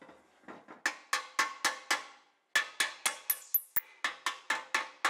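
Hammer striking the metal of a Koenders windmill compressor's crankshaft assembly to knock a part loose. The blows are quick and evenly spaced, about four a second, each with a short metallic ring. They pause briefly about two seconds in, then carry on.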